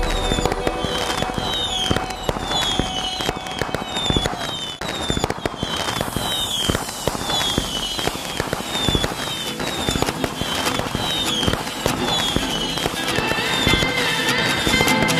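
Fireworks popping and crackling in rapid, irregular bursts, with music playing underneath.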